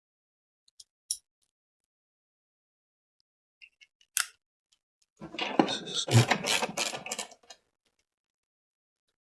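Metal hand tools clicking: a sharp single click about a second in, another about four seconds in, then about two seconds of rapid metallic clicking and clatter from working the engine mount bolts.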